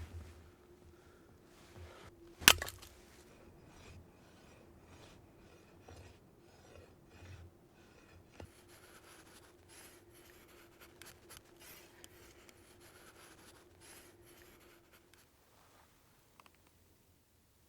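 Irregular scraping and rubbing sounds, with one sharp loud click about two and a half seconds in; they fade out near the end.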